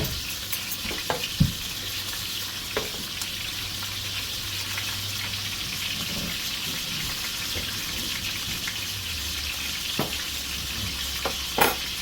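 Flour-breaded rabbit pieces frying in hot oil: a steady sizzle, broken by a few sharp clicks about a second in and twice near the end.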